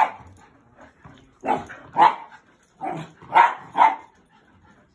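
Terrier barking in play while two dogs wrestle: about six short barks at uneven spacing, some coming in quick pairs.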